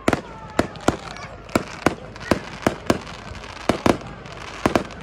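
Aerial firework shells bursting overhead in a rapid, irregular series of sharp bangs, about two or three a second.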